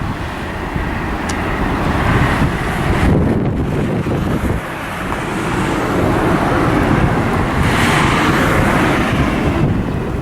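Wind buffeting the microphone over a steady broad roar, which swells about two seconds in and again near eight seconds.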